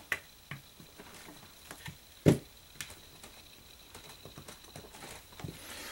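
Light, scattered clicks and taps of a small steel pin and a Glock pistol's polymer frame being handled as the pin is pushed into place, with one sharper click a little past two seconds in.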